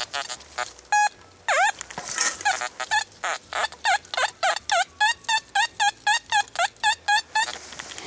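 Metal detector's audio sounding a series of short warbling beeps as the search coil is swept back and forth over a buried target in the dug hole, coming faster, about three a second, in the second half. The beeps signal metal still in the ground there.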